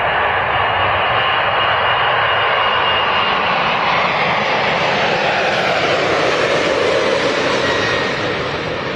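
Boeing 747's four jet engines at takeoff power, a loud steady roar as the airliner lifts off and passes close overhead, the pitch sliding down about halfway through as it goes by.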